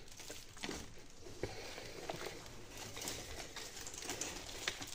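Faint crumbling and rustling of potting soil being broken away by gloved hands from turmeric rhizomes, with small scattered ticks.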